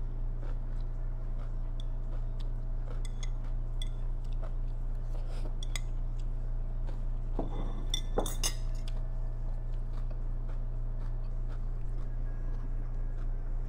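Metal chopsticks clicking and scraping against a ceramic plate as the last bits of salad are picked up, with a louder clatter of clinks about eight seconds in. A steady low hum runs underneath.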